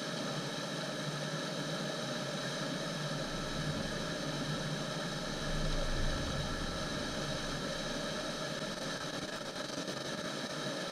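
Steady rush of river whitewater pouring over a ledge into a churning hole, with a deeper rumble swelling for a few seconds around the middle.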